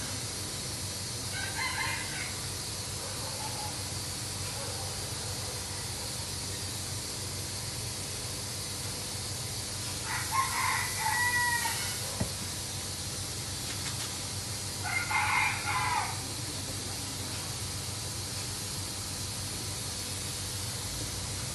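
A rooster crowing three times: a faint call about two seconds in, then two louder, drawn-out crows of a second or two each, about ten and fifteen seconds in, over a steady background hiss.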